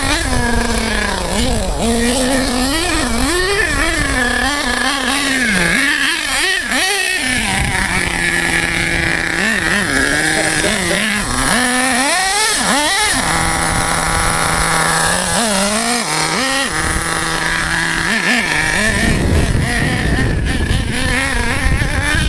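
HPI Savage XL 5.9 RC monster truck's small two-stroke nitro engine revving up and down as it drives, holding a steady high pitch for a couple of seconds twice in the middle, then turning rougher and noisier near the end.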